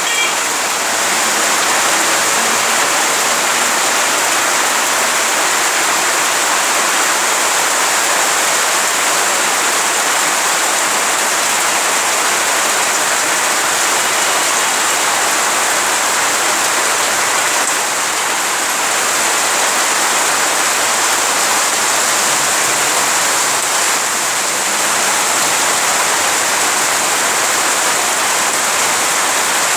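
Heavy rain falling steadily, a dense even hiss of pouring water.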